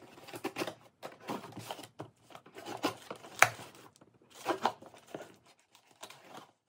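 Cardboard shipping box being opened with a knife: the blade slits the packing tape, and tape and cardboard tear and scrape in irregular bursts, with one sharp snap about three and a half seconds in.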